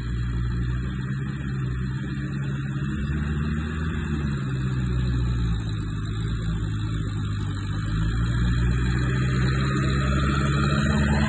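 1952 Ferguson TE20 tractor's four-cylinder engine running steadily as it drives along, getting louder over the last few seconds as the tractor comes close.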